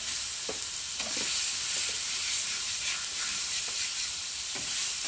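Thick chuck steaks sizzling and frying in butter on a thick griddle, a steady sizzle, with a few light taps of the cooking utensil on the griddle.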